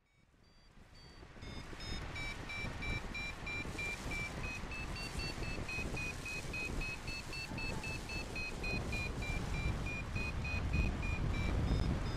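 Paragliding variometer beeping about four times a second, its pitch stepping up a little and then back down: the audio climb signal of flying in rising air. A low rush of wind on the microphone runs underneath and grows louder near the end.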